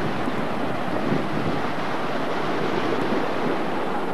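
Surf washing on a beach, with a steady rush of wind across the camcorder's microphone.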